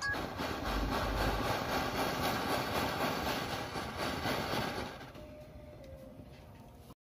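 Gas torch flame hissing steadily as it heats a silver ring to solder on a pendant loop. About five seconds in the hiss falls quieter, and it cuts off abruptly near the end.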